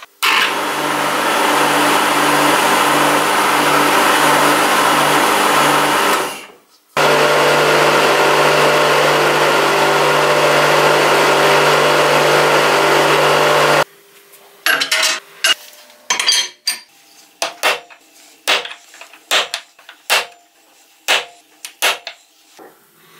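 An electric power tool runs loudly for about six seconds, stops, then runs again for about seven seconds with a steady hum. It is followed by a string of separate sharp knocks and taps.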